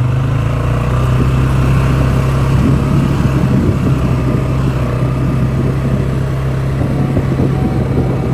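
A motor vehicle driving at a steady pace: an even low engine tone with road noise, holding steady throughout.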